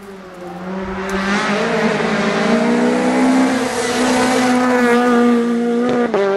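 Rally car engine at full speed, growing louder as the car nears and staying loud through the middle, with a brief break in the engine note about six seconds in as it changes gear.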